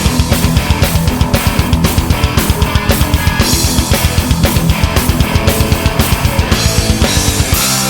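Rock band playing an instrumental intro: electric guitar over a rapid, even run of bass-drum beats, about eight a second, with bass and keyboards. The fast kick pattern stops shortly before the end.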